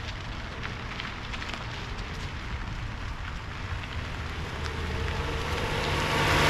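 Steady noisy background with scattered crackles and clicks over a low rumble. Music fades in, growing louder, over the last two seconds or so.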